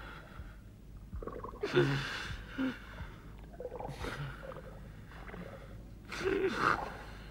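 Two divers gasping and groaning for breath in three bouts a couple of seconds apart, their air tanks nearly empty, over a steady low hum.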